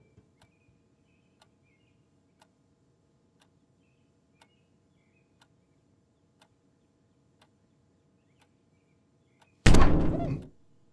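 A clock ticking softly about once a second, with a few faint high chirps. Near the end comes one loud thump with a brief ringing rattle: the cat slamming flat against the window glass.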